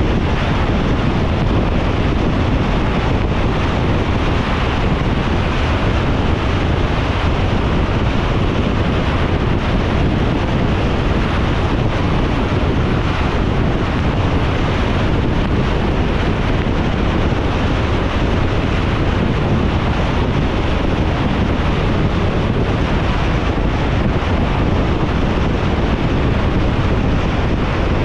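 Steady road noise of a car driving in the rain: tyres hissing on the wet road over a low rumble, even and unchanging.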